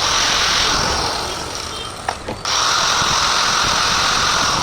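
1100 W electric angle grinder with a repaired armature, running at full speed with a steady high-pitched whine. It eases off about two seconds in and is switched back on about half a second later.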